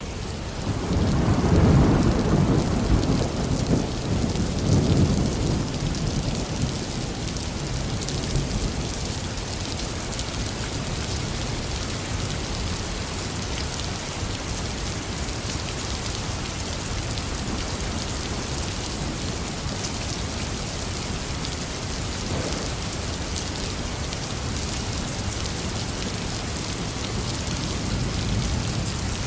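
Heavy rain falling steadily, with a long rolling rumble of thunder starting about a second in and dying away over several seconds, and a fainter rumble later on.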